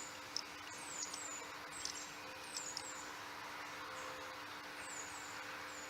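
Small birds chirping in the background: repeated short, high, falling chirps, often in pairs, over a steady low hum, with a few faint clicks of hose and clamp being handled.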